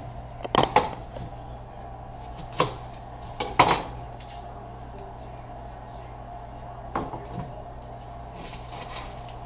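Kitchen knife knocking and clicking on a wooden cutting board while an onion is peeled and cut: about five sharp, scattered knocks over a steady low hum.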